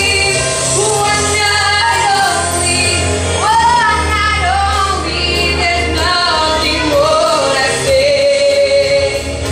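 A woman sings a soul ballad live into a microphone over instrumental accompaniment with a steady bass. Her voice moves through sweeping runs and settles into one long held note near the end.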